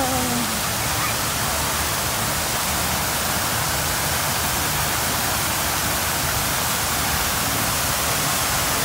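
Steady rush of water falling from a waterfall, an even roar with no breaks.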